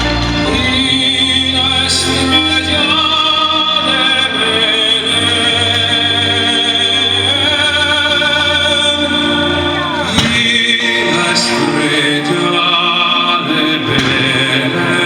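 Music with singing in long, held operatic-style notes that move from pitch to pitch.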